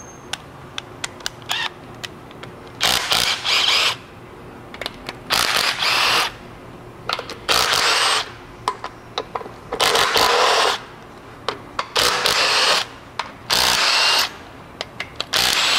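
A cordless power tool with a socket running in short bursts of about a second, about seven times, backing bolts out of a 6.4 Powerstroke diesel engine's valve cover one after another. Small clicks and knocks come between the bursts as the socket is moved from bolt to bolt.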